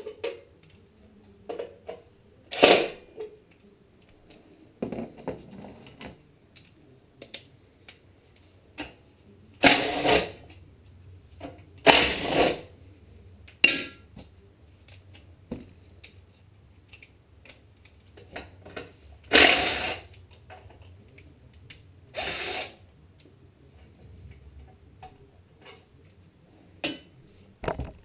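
Cordless drill-driver run in about five short bursts, backing screws and bolts out of a small engine's sheet-metal shroud, with light clicks and clatter of metal parts being handled in between.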